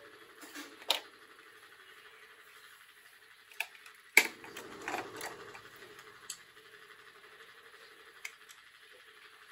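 Scattered small clicks and taps of metal tools and brass tattoo-machine parts being handled on a workbench, the loudest a sharp clack just after four seconds in, with a few more around five seconds and single ones later, over faint steady background noise.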